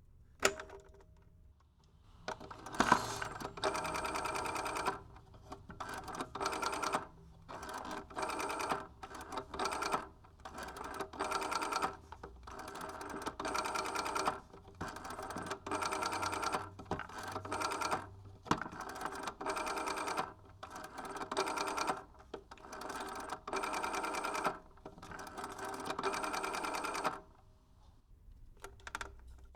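Rotary dial of an old telephone being turned and let go again and again. Each return of the dial is a rapid whirring click run lasting about a second, with short pauses between digits. There is a sharp click just after the start.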